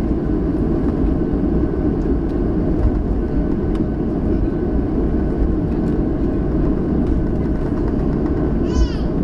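Steady engine and cabin rumble of a Boeing 737, heard from inside the passenger cabin while the plane rolls slowly on the ground, with a faint steady whine above it. Near the end a brief high-pitched voice cuts in.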